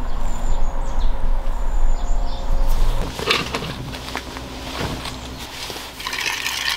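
Outdoor ambience with a low wind rumble on the microphone and a few faint, high bird chirps. About three seconds in it changes to quieter rustling of clothing and a camping chair as someone sits down.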